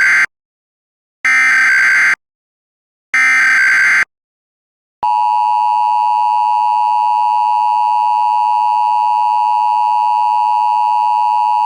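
Emergency Alert System tones: three roughly one-second bursts of warbling SAME data tones, each followed by silence, which encode the coming alert. About five seconds in, the two-tone EAS attention signal starts as a steady harsh blare, announcing that the voice bulletin is about to follow.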